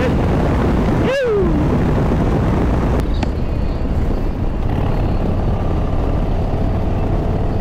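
Harley-Davidson Breakout's V-twin engine running steadily at highway cruising speed, mixed with wind and road noise. About a second in, a brief pitched sound falls in pitch.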